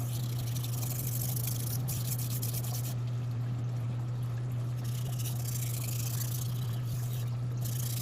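Kitchen knife blade being stroked across a wet Shapton Glass whetstone: runs of scraping hiss that stop and start several times with short pauses, over a steady low hum.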